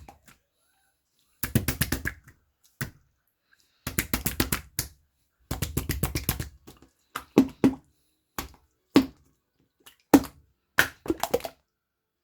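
A squishy 치젤몬 toy being kneaded and squeezed by hand, making bursts of crackly, clicky squishing about a second long with short pauses between. In the second half these give way to single sharp pops.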